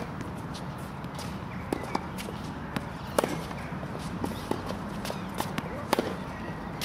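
A tennis ball being hit with a racket and bouncing on a hard court, heard as sharp knocks several times over, with the player's footsteps between them. The sharpest knock comes about three seconds in, and there is a steady low rumble underneath.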